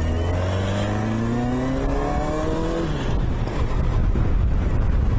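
Yamaha XJ900S Diversion's inline-four engine pulling away: its revs climb steadily for about three seconds, drop suddenly at a gear change, and give way to louder wind and road noise as the bike gathers speed.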